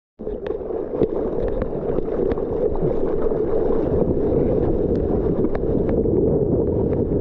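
Water rushing and splashing past a surfboard as the surfer hand-paddles and the board picks up speed on a small wave. There is a steady, muffled rush mixed with wind on the microphone and scattered small splashes. It starts abruptly just after the beginning.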